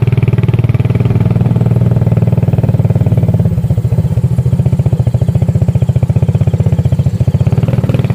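Small motorcycle engine running loud and steady, its exhaust pulses closely spaced; the engine note changes about three and a half seconds in.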